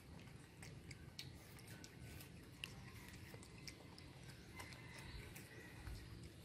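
Baby monkeys chewing and biting into pieces of soft red fruit: faint, irregular small wet clicks and smacks.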